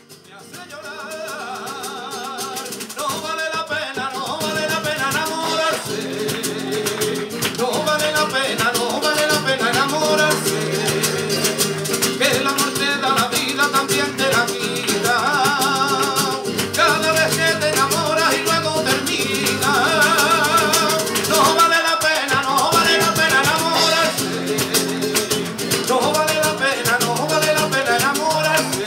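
Live acoustic band starting a Latin, flamenco-flavoured song: guitar and percussion with a shaker, under a wavering melody line with vibrato. It begins softly and builds over the first several seconds, then carries on steadily.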